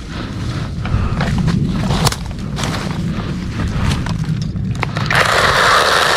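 Leaves rustling and scattered knocks over a low rumble, then about five seconds in a KEELAT 8-inch cordless electric mini chainsaw starts suddenly and runs steadily at full speed.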